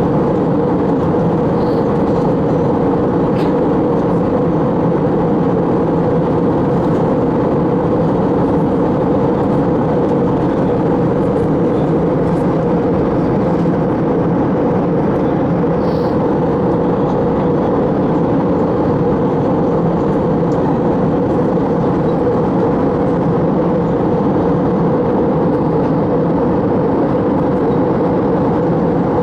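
Steady cabin noise of an Airbus A321 in flight: a loud, even drone of engines and airflow heard from inside the passenger cabin, with a few faint ticks.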